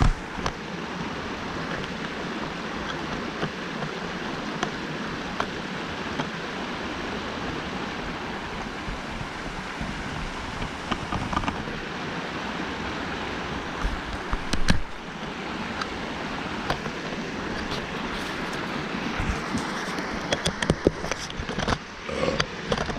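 Creek water rushing steadily, an even hiss, with a few sharp clicks and knocks: the loudest just past the middle, and several more near the end.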